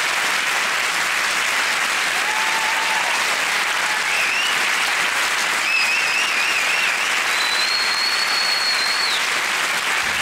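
Large theatre audience applauding steadily, with a few high whistles over the clapping.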